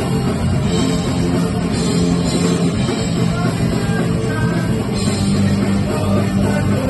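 Punk rock band playing live: electric guitars and drums going loud and continuous.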